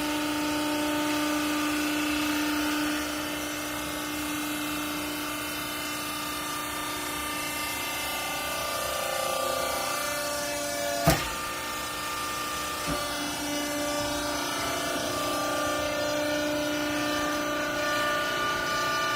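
Hydraulic baling press's pump unit running with a steady whine that shifts in pitch a few times, with a sharp clack about eleven seconds in and a lighter one shortly after.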